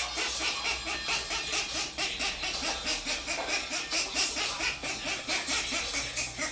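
A parrot calling in a fast, unbroken run of short, shrill squawks, about six a second.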